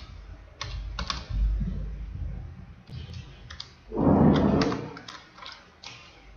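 Computer keyboard typing in short runs of key clicks. About four seconds in there is a brief low rush of noise, louder than the keys.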